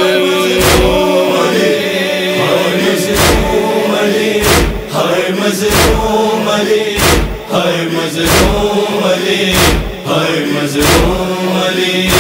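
Rhythmic matam chest-beating, a sharp thump about every 1.3 s. Under it a wordless male chorus hums a sustained drone as the backing of a Shia noha lament.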